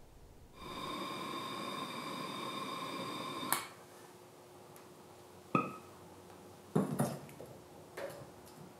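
Propane torch flame hissing quietly with a faint whistle, stopping with a click about three and a half seconds in. A few sharp clicks and glassy pings follow.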